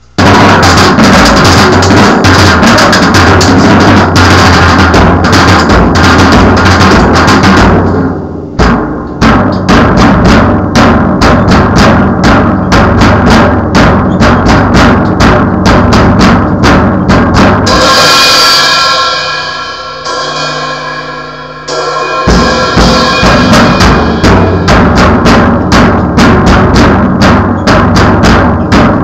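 Drum kit played loudly and fast, with bass drum and snare hits packed close together. About two thirds of the way in, the hits stop for a few seconds while a ringing sound holds and fades, then the beat picks up again.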